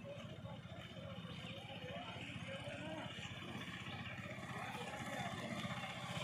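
Road traffic approaching: a small pickup truck and motorcycles drive closer, their engine rumble growing gradually louder toward the end, with faint voices in the background.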